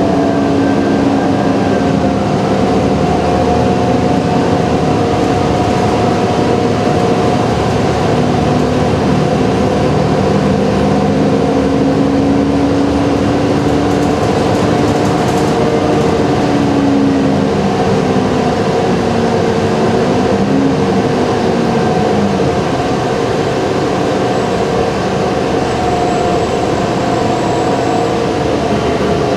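Moving transit bus heard from inside the cabin: a steady drone of engine, drivetrain and road noise, with the engine's pitch shifting up and down for a few seconds past the middle.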